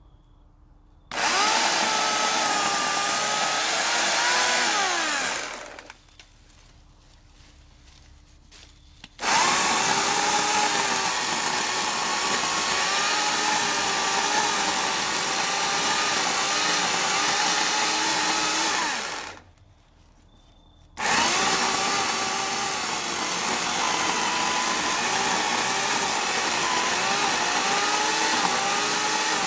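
Portland 14-inch 9-amp electric chainsaw cutting into a thick branch in three runs. It starts about a second in and winds down after about four seconds, starts again after a pause and runs about ten seconds, stops briefly, then starts and runs again. The motor's pitch wavers as the chain loads in the wood.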